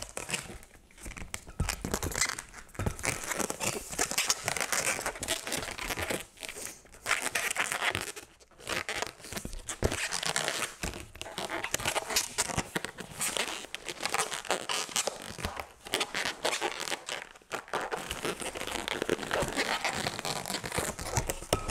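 Latex twisting balloons being inflated, handled and twisted: irregular rubbery crinkling and rubbing, in stretches broken by short pauses.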